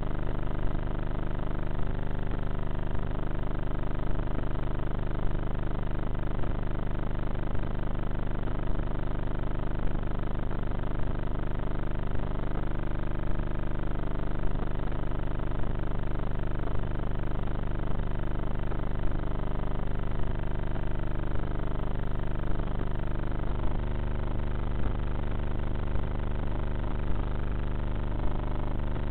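Brushless pusher motor and propeller of a Bixler RC foam plane droning steadily in flight, picked up by the onboard camera, its pitch rising and falling slightly now and then.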